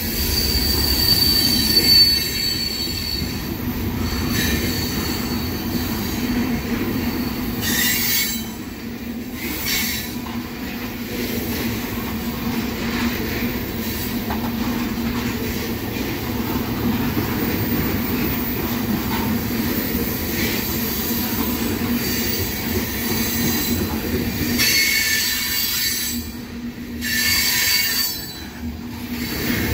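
Freight cars of a long freight train, mostly tank cars, rolling past at close range with a steady rumble of wheels on rail. Thin high wheel squeals come and go as the train slows, with one about a second in and another near the end.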